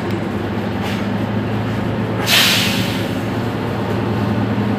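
Mercedes-Benz Citaro C2 city bus idling with a steady low drone. About two seconds in, a loud short hiss of compressed air is let out from its pneumatics and fades within about half a second.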